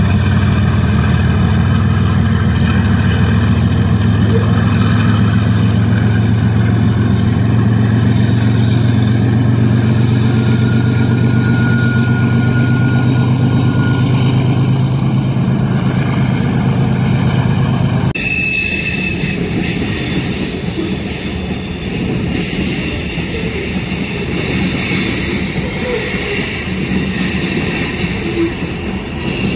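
Diesel-electric freight locomotives passing at close range, their engines giving a steady low hum. About two-thirds of the way through, this gives way to covered hopper cars rolling by, with steady high-pitched wheel squeal.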